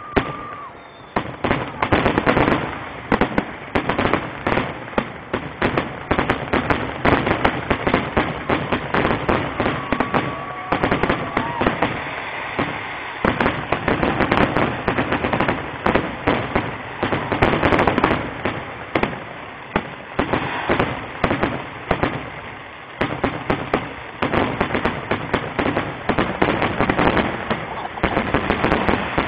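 Fireworks finale: a dense, unbroken barrage of aerial shell bursts and crackling, many bangs a second.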